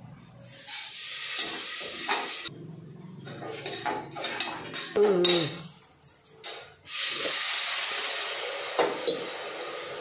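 Cooking sounds at a gas stove: a steady hiss that cuts out about two and a half seconds in and comes back near seven seconds, with scattered clinks of a steel ladle against pots. About halfway through, a short sliding whine is the loudest sound.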